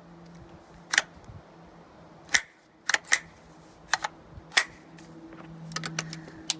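Sharp metallic clicks and clacks of an Intratec Tec-22 .22 LR pistol being worked by hand, its bolt and magazine handled about ten times, some clicks in quick pairs. The pistol keeps failing to feed a round into the chamber.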